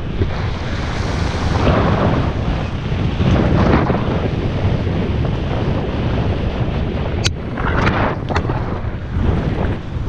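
Wind buffeting the microphone of a helmet-mounted GoPro Hero5 Black on a moving mountain bike: a loud, steady low rumble with several swells. There is one sharp click about seven seconds in.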